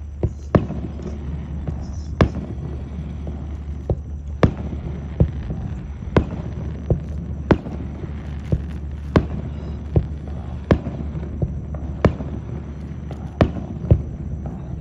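Aerial fireworks bursting at a distance: a string of sharp bangs, irregularly spaced at roughly one to two a second, over a steady low rumble.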